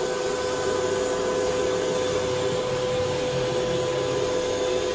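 Blue Elephant 1650 CNC oscillating-knife cutting machine running: a steady rushing whir with a constant high hum.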